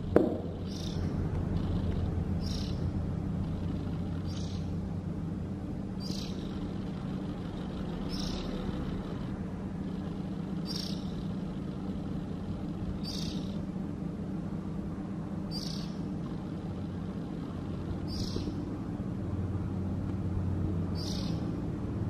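Fledgling oriental magpie-robin giving short, high single chirps, one about every two seconds, over a steady low hum. A brief knock comes right at the start.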